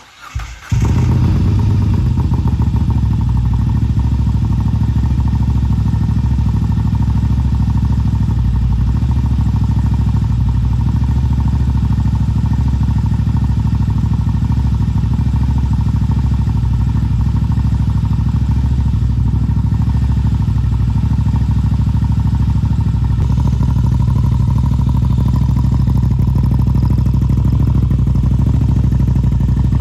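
Moto Guzzi V7 850 Stone's air-cooled transverse V-twin on a cold start: the starter turns it briefly and it catches within about a second, then idles steadily through Mistral short conical exhausts with the dB killers removed. The idle grows slightly louder about two-thirds of the way through.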